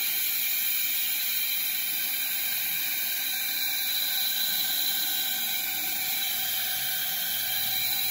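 CNC wood router machine running: a steady high hiss with several constant whining tones over it.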